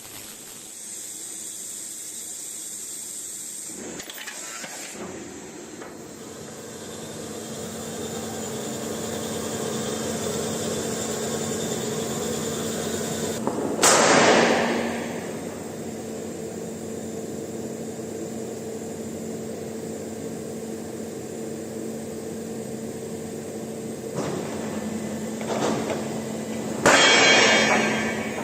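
HY 150NC CNC high-speed metal circular sawing machine running: a steady hum that swells over several seconds, with two short, loud noisy bursts, one about halfway through and one near the end.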